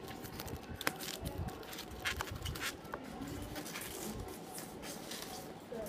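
Scattered light clicks, knocks and rustling of objects being handled, with a few soft low thumps in the middle.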